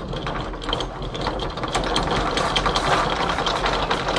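Electric anchor windlass paying out chain to lower the anchor: a steady low motor hum under a fast, continuous clatter of chain links running over the gypsy.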